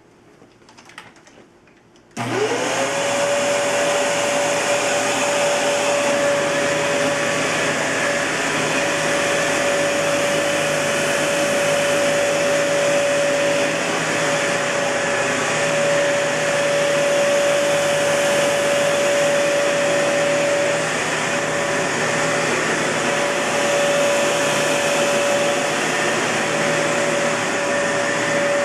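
Kenmore Elite Cleva upright vacuum cleaner, with its Panasonic Inducer motor, switched on about two seconds in after a couple of faint clicks. The motor spins up with a quickly rising whine that settles into one steady high tone over a loud, even rush of air, and it runs at that speed.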